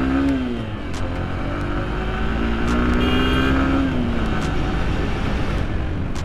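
Hero Xtreme 160R's single-cylinder engine running under way, over heavy wind rumble on the microphone. The engine pitch drops just after the start, then climbs steadily and falls again about two thirds of the way through.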